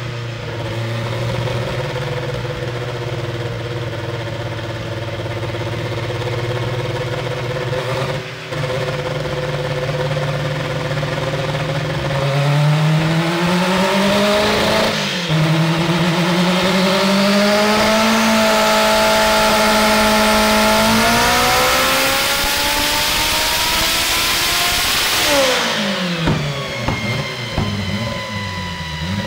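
Turbocharged Honda Civic drag car's engine running on a hub dyno. It holds a steady speed for about twelve seconds, then climbs in steps with a growing rush of turbo and exhaust noise. Near the end the revs drop sharply.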